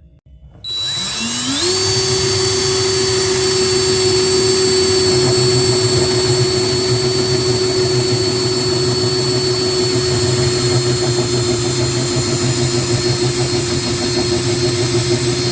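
Small electric motor spinning up about a second in, rising quickly in pitch, then running loud at a steady high pitch and cutting off suddenly at the end.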